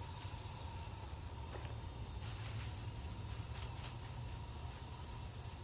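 Garden hose spray nozzle spraying water onto a compost pile of alfalfa and straw, a steady hiss over a low steady rumble.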